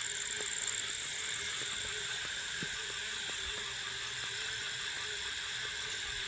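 Chorus of night insects trilling steadily at several high pitches, with a few faint ticks.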